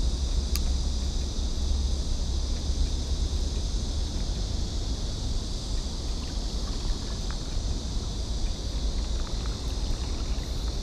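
Steady wind rumbling on the camera microphone, over a constant high-pitched hiss.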